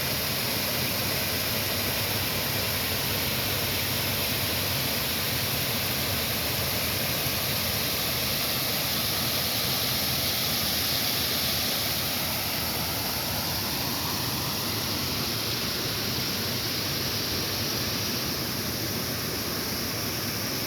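Waterfall: a steady, even rush of falling water, slightly quieter in the second half.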